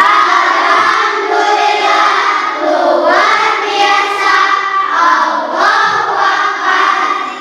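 A group of children singing a song together in unison, holding sustained notes.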